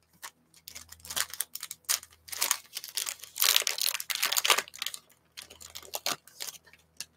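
Foil wrapper of a football trading-card pack being torn open and crinkled by gloved hands: irregular crackling and rustling, loudest around the middle.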